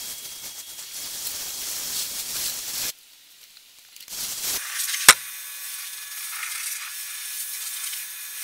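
Pressure washer jet spraying, rinsing snow foam off a car's bodywork and wheel: a steady hiss that stops for about a second near three seconds in, then resumes, with one sharp click about five seconds in.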